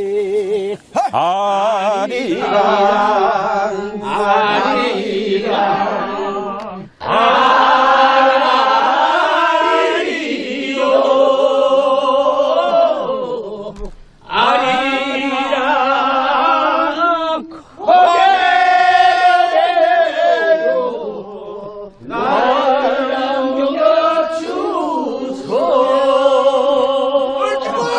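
A group of voices singing a Korean folk song without accompaniment, in six long, wavering phrases with short breaks for breath between them.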